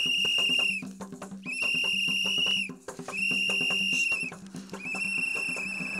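A shrill whistle blown in four long, steady blasts, each about a second, with the last one held longer and wavering near the end. Quick hand percussion runs underneath.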